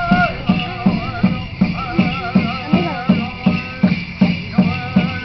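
Powwow drum and singers: a large hand drum struck in a steady beat, a little under three beats a second, under high, wavering group singing, the song accompanying an Old Style Fancy Dance.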